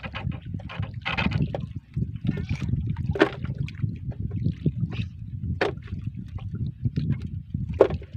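Sea water lapping against the hull of a wooden outrigger boat with a steady low rumble of wind and water, broken by a few short knocks and splashes as a longline is hauled in by hand over the side.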